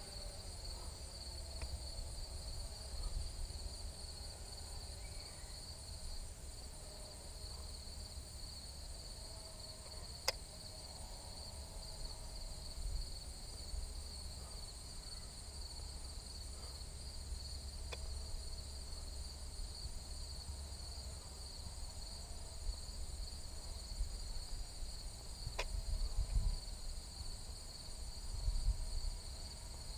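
Steady, pulsing chirr of summer insects, a two-pitched high drone that keeps going throughout, over a low wind rumble on the microphone. Two sharp clicks break through, about a third of the way in and again near the end.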